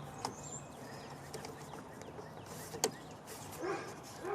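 Quiet handling noise of plastic parts in an engine bay: small rustles and one sharp plastic click about three seconds in, as the electrical plug of a new vapor canister purge solenoid is worked into place. Faint bird chirps sound in the background near the start.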